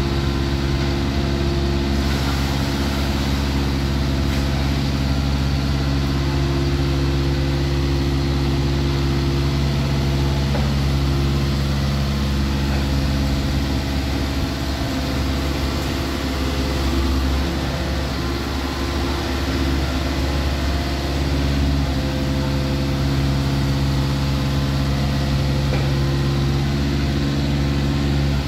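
Diesel engine of a mini amphibious excavator on pontoons running steadily while its arm and bucket dig sediment from the canal bed.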